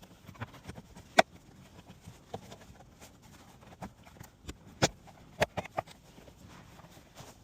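Scattered sharp clicks and knocks of car keys being handled and door locks being tried, the loudest about a second in and a quick run of several a little past halfway.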